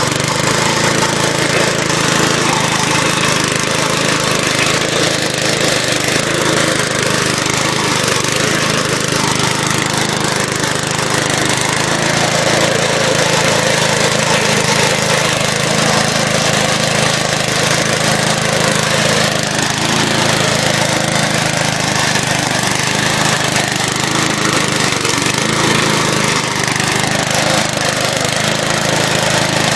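Old crank-start Briggs & Stratton lawn mower engine running steadily while the mower cuts grass, a loud even drone with the rushing noise of the blade.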